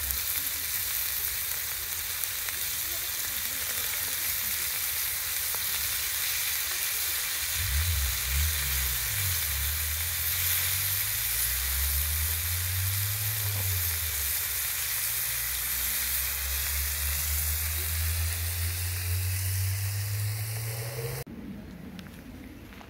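Lamb chops sizzling on a fire-heated stone slab, a steady dense frying hiss, with a low wavering hum underneath. The sizzle cuts off sharply near the end.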